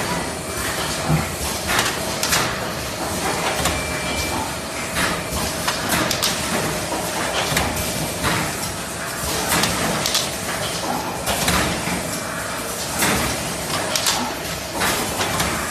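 Automatic cup fill-and-seal machine running: steady mechanical clatter with sharp clacks every second or two as it cycles, over a faint steady hum.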